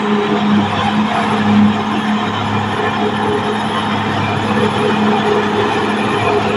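Caterpillar D6R XL bulldozer's diesel engine running steadily as the machine works, a constant low drone over dense mechanical noise.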